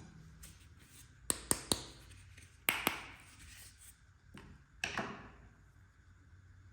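Toy kitchen set pieces tapping and clicking as they are handled and set down: three quick sharp taps just over a second in, then single taps with a short ring about a second and a half later and again near the end.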